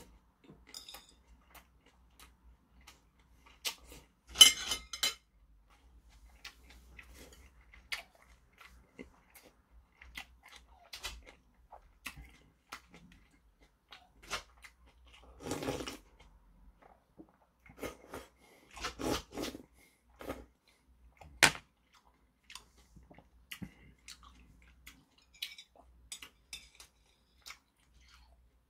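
Close-up eating sounds: chewing boiled pork and crunchy chonggak radish kimchi, with metal chopsticks clicking against ceramic bowls now and then. There is a noisy sip from a bowl about halfway through.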